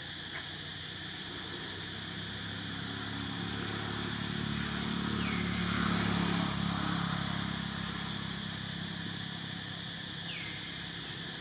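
A motor vehicle engine passing by: a low hum that grows to its loudest about six seconds in and then fades, over a steady drone of insects.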